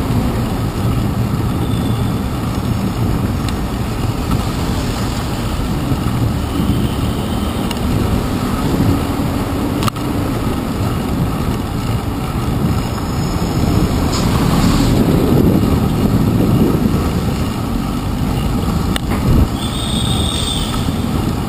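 Steady traffic and road noise from a bicycle riding through city traffic, picked up by a handlebar-mounted action camera, with tyres on wet pavement and cars passing close by. It grows louder for a few seconds past the middle, and two brief clicks come about ten seconds in and near the end.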